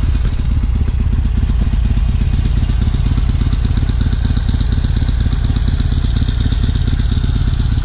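A 2019 Harley-Davidson Sportster Iron 883's air-cooled V-twin is running steadily at idle with a fast, even low pulse and no throttle. The clutch is being eased into the friction zone to creep the bike forward.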